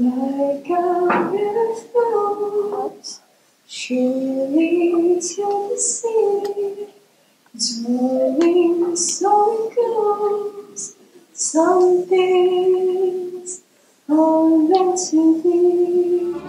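A young woman singing solo and unaccompanied into a handheld microphone, in phrases of a few seconds with short pauses for breath between them.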